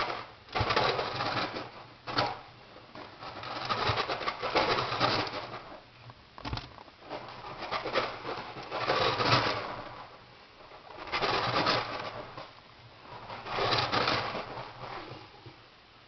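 Guinea pig purring in repeated low swells, each a second or two long and two to three seconds apart.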